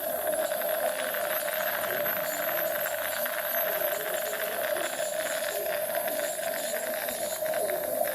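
Dental treatment equipment running continuously: a steady hum with a thin high whine over a hissing, rushing noise, the kind made by a dentist's suction and handpiece.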